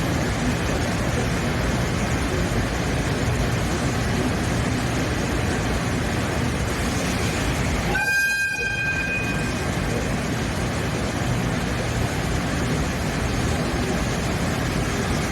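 Train running with steady, loud noise, and a single short horn toot about halfway through that lasts about a second and a half.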